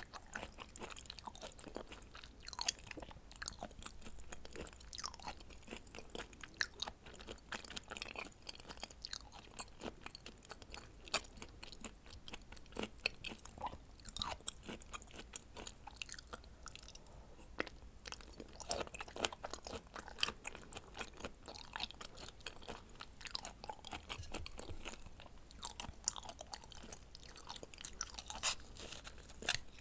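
Close-miked chewing of raw seafood (sashimi-style red shrimp and scallop), wet mouth sounds with many short sharp clicks, several a second, in an uneven rhythm.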